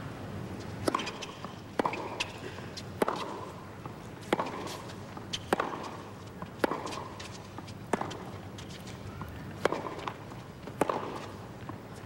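Tennis balls struck by racquets in a serve and a long baseline rally: a sharp pock roughly once a second, about ten in all, each with a brief echo.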